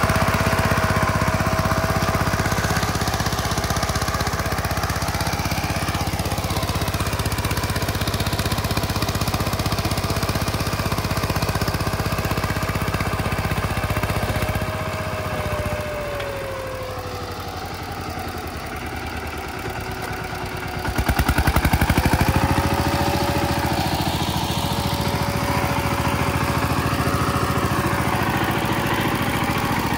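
VST Shakti 130 DI power tiller's single-cylinder diesel engine running steadily. A little past halfway its note sags and falls for a few seconds, then climbs back with a brief louder surge and runs steady again.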